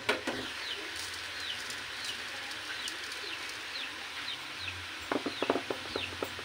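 Chicks peeping over and over, short falling peeps about two a second. Sharp clicks cut in at the very start and in a quick run about five seconds in.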